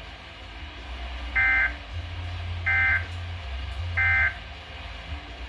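Three short bursts of warbling digital data tones from a weather radio, about 1.3 s apart. This is the SAME end-of-message code sent three times, closing the alert broadcast. A steady low hum runs underneath.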